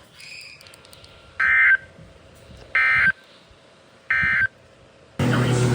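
EAS end-of-message signal on a NOAA Weather Radio broadcast: three short bursts of high digital data tones, evenly spaced about a second and a half apart, closing the severe thunderstorm warning. Near the end a steady vehicle engine hum cuts in suddenly.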